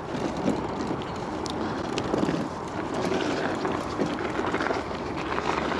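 Steady rushing wind noise on the microphone over the rumble of an electric scooter's tyres rolling on dirt and gravel.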